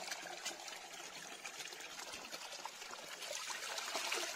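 Running water trickling steadily, a little louder near the end.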